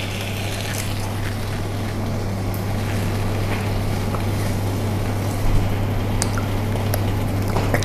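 A steady low hum under an even hiss from a pan of spice paste and coconut milk cooking on the hob, with a few light clicks in the second half.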